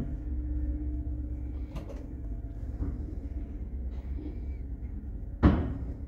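A 1978 elevator car travelling down its shaft, with a steady low running rumble, a few light clicks, and one loud clunk about five and a half seconds in.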